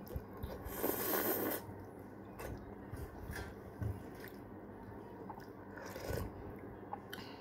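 Close-up eating of Maggi instant noodle soup with egg: chewing and mouth sounds from spoonfuls of noodles, egg and broth, with a louder, noisy sip about a second in and a few light clicks scattered through.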